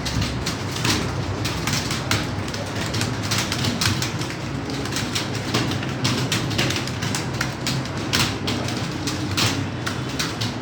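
Many computer keyboards clattering at once as a roomful of typists type at speed: a dense, irregular stream of key clicks over a steady low hum.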